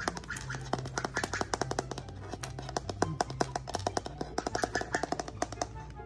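Rapid, irregular clicking and tapping from a blue Quaker parrot nibbling at fingers and pecking at a wooden floor with its beak. Background music with a bass line runs underneath.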